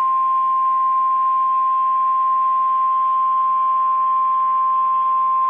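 NOAA Weather Radio 1050 Hz warning alarm tone: a single loud, steady tone over faint receiver hiss. It is the alert that a weather warning message follows.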